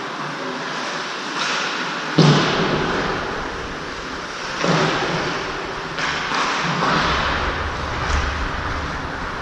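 Ice hockey game play in a rink: a sharp, loud thud against the boards about two seconds in, another near five seconds and a softer one near seven, over steady rink noise.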